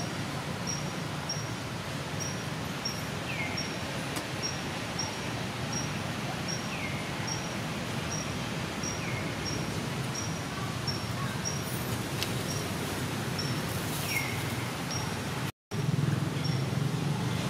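Forest ambience: a steady hiss with a short, high note repeated evenly about three times every two seconds, and now and then a falling chirp from a bird. The sound drops out for a moment near the end, then the hiss returns a little louder.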